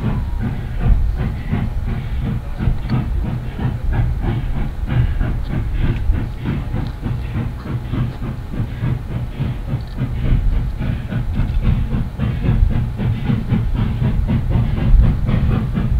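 Nevada Northern Railway No. 81, a Baldwin 4-6-0 steam locomotive, working toward the listener from a distance, its exhaust chuffing over a heavy, deep rumble.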